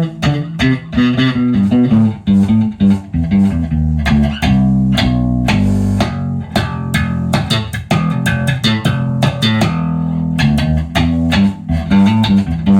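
Electric bass guitar played clean through two rigs at once: an Eden WTDI preamp into a Hartke 600 amp driving a 1x15 cabinet, and a Hartke 300 amp driving a 4x10 cabinet. It plays a run of mostly quick plucked notes with a couple of longer held ones. The tone is very bright, but also super round.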